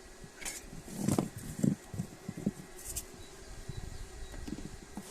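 A handful of irregular knocks and bumps, as of parts being handled and set down, the loudest about a second in.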